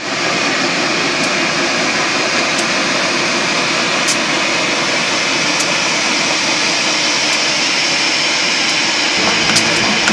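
Pere Marquette 1225, a 2-8-4 Berkshire steam locomotive, hissing steadily as steam vents, with no exhaust beat.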